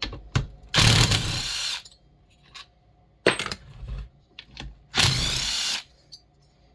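A power drill run in two bursts of about a second each, apparently to take the handle off a chainsaw, with a few clicks and knocks of parts and tools being handled in between.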